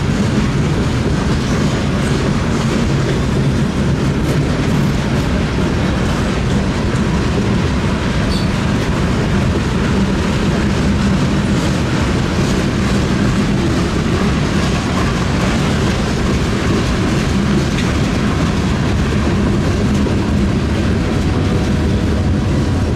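Freight cars (boxcars, then gondolas) rolling past, their steel wheels running loud and steady on the rails.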